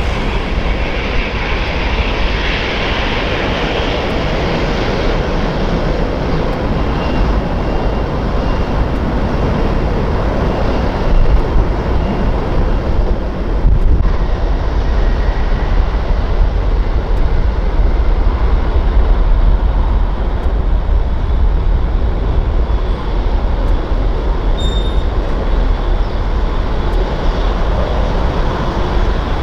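Jet aircraft engines running at high power, a loud steady rushing noise with a deep rumble underneath and a faint thin whine for a few seconds.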